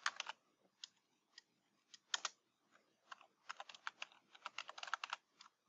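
Faint key taps on a computer keyboard, typing in short irregular runs: a few scattered taps at first, then a quicker run from about three seconds in.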